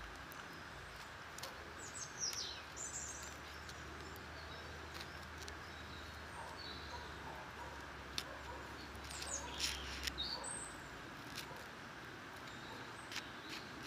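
Woodland ambience: a steady hiss with short, high bird chirps, a few at two to three seconds in and more at nine to ten seconds in, and scattered light clicks.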